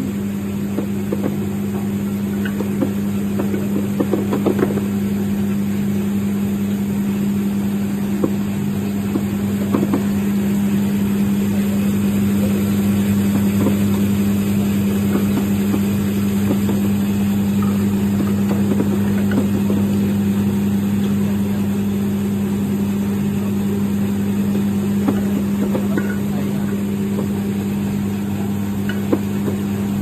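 Golf ball washing machine running: a steady electric motor hum under a constant wash of noise, with scattered light clicks of balls knocking together and against the steel trough.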